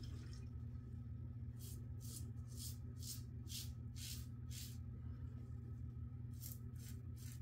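Razor blade scraping through lathered stubble on the neck: a run of short rasping strokes, about two a second, then a few more near the end, over a steady low hum.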